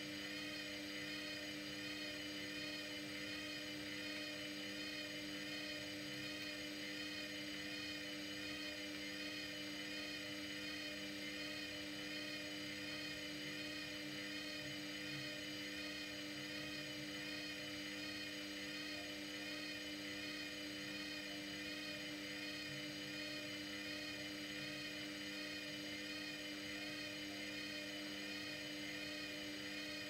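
Front-loading washer-dryer running in its drying cycle: a steady whir of the motor and drying fan with a high whine that wavers slightly, and no knocks.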